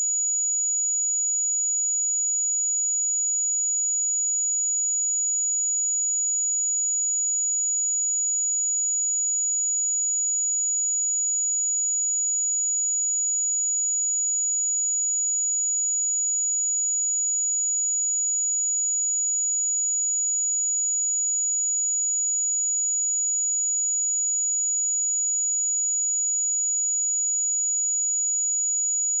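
A steady 6856 Hz pure sine-wave test tone, a single high-pitched whistle held at an even level without a break.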